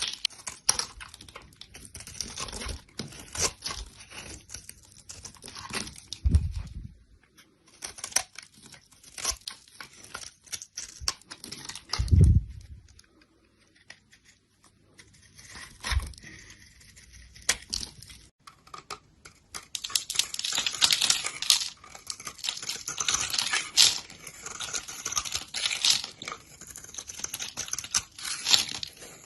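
Knife cutting and scraping dry soap: irregular crisp crackling and crunching, with a few dull thumps and two short pauses, busiest in the last third.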